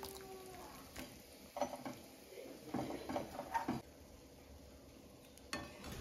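A few light clicks and clatters of small hard objects: one about a second in, a pair soon after, a quick cluster in the middle and a single one near the end.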